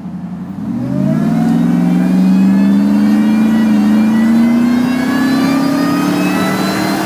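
Supercharged 5.4-litre V8 of a 2001 Ford Lightning SVT, with a custom exhaust, accelerating hard under load. The engine note jumps up about a second in and then climbs steadily, with a thin supercharger whine rising above it.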